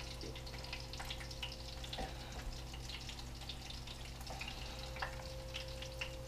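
Breaded brook trout frying in oil, with a dense scatter of small crackles and pops over a steady hum. A few light knocks come about one, two and five seconds in.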